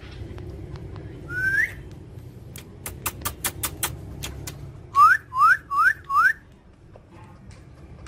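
Rose-ringed parakeets calling: a single rising whistle, then a quick run of sharp clicks, then four loud, quick rising whistled calls in a row.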